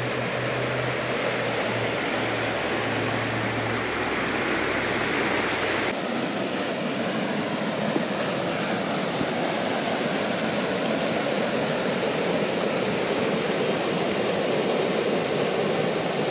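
Shallow rocky river rushing over small rapids: a steady, even rush of water. A low hum sits under it for the first few seconds.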